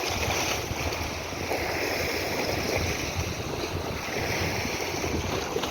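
Steady wind noise on the microphone over the wash of sea water, with no distinct events.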